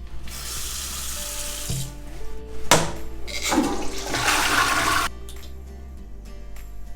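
Water running in two spells, with a single knock between them, over quiet background music.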